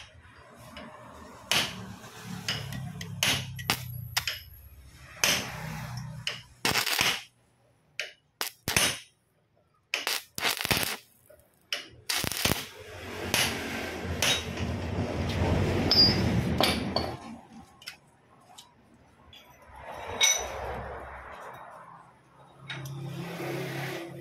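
Stick (arc) welding the universal-joint yoke onto a steel propeller shaft: the arc crackling and sizzling in several short spells, with a longer unbroken run about halfway through and another near the end.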